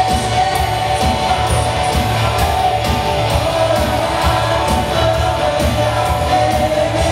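Live band playing a song: vocals singing long held notes over guitars, bass and drums, with a steady drum beat.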